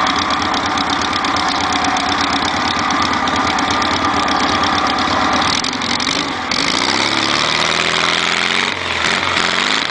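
Off-road buggy engine running hard, then revving up with a rising pitch from about seven seconds in, dipping briefly near the end before climbing again.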